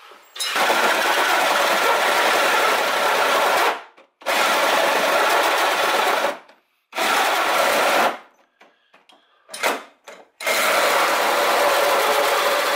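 Ryobi cordless drill running under load as it cuts a hole through a Jeep's sheet-metal body. It runs in bursts of a few seconds with short stops between, and there is one brief blip before the last run.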